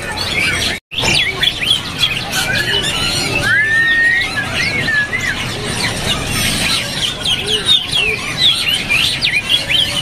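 Many caged songbirds chirping and whistling over one another, with a clearer whistled phrase that rises and falls about three to five seconds in. The sound cuts out for an instant just before one second in.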